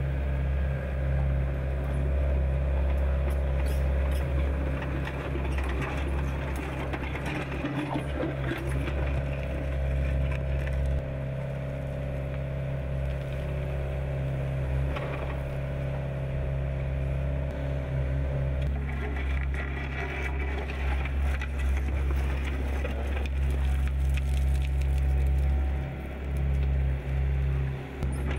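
Compact excavator's diesel engine running steadily while it digs. A steady higher whine comes in for about ten seconds midway, with scattered clicks and knocks throughout.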